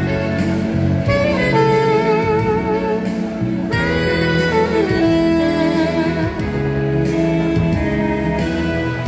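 Alto saxophone playing a slow melody with wide vibrato and sliding notes, over a sustained accompaniment.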